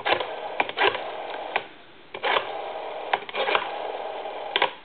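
Rotary dial of a Western Electric desk telephone being wound round and spinning back, digit after digit, as a number is dialed: a whirring run broken by sharp clicks, with a short pause between digits about two seconds in.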